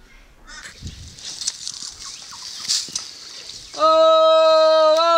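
A woman's long, loud call of "Oh", starting near the end and held on one steady pitch before it begins to fall. Before the call there is only a faint high background hiss.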